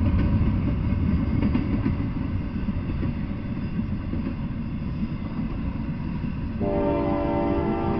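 Double-stack intermodal freight train rolling past: a steady low rumble of wheels and cars, with a few wheel clicks early on. About six and a half seconds in, a train horn starts and holds.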